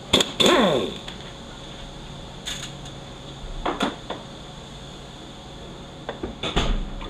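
A handheld power wrench runs briefly on an oil-pump bolt of a Toyota U250E automatic transaxle, falling in pitch as it winds down. Then come a few metal clanks and a low thump as the tool is set down and the pump is lifted off the transmission case.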